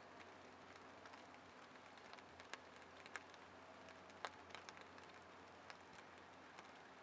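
Near silence: light rain on a pond, a faint steady hiss with scattered soft drop ticks, one a little louder just after four seconds in.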